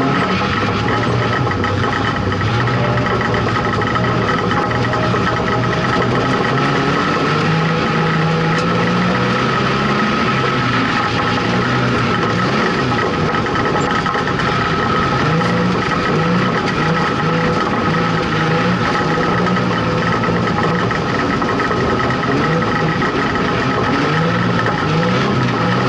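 Street Stock race car's engine heard from inside the cockpit on a dirt speedway, loud and continuous. Its pitch rises and falls again and again as the throttle comes on and off. A steady high whine runs over it.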